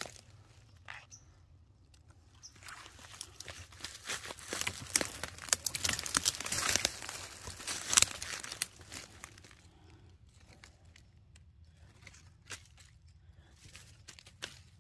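Footsteps crunching and crackling through dry leaf litter and twigs, dense and irregular from about two seconds in until about nine seconds, then only a few scattered crackles.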